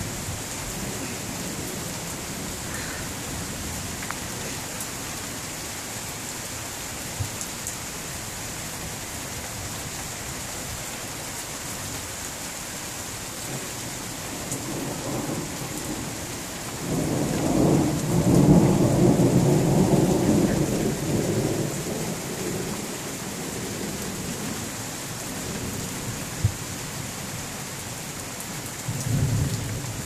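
Steady rain falling, with a long roll of thunder that builds about halfway through, stays loudest for a few seconds, then fades away. A shorter rumble of thunder starts near the end.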